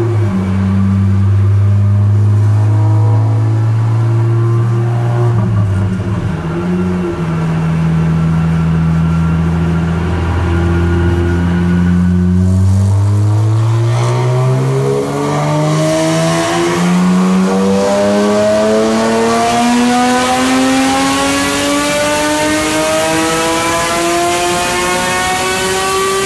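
Porsche 718 Cayman GT4 4.0's naturally aspirated flat-six, on a straight-through JCR Inconel and titanium race exhaust with no silencer, running on a chassis dyno. It holds low, fairly steady revs with a few small changes in pitch, then from about halfway goes into a full-throttle dyno pull, its pitch rising smoothly and steadily all the way to the end.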